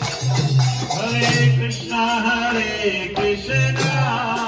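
Devotional kirtan: a voice singing over a repeating low note and rhythmic jingling percussion, with hand clapping in time.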